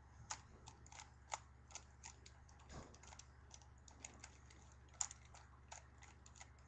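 Rubik's Cube being twisted quickly by hand: faint, irregular clicking of the plastic layers turning, a few clicks a second, with a louder click about five seconds in, over a steady low hum.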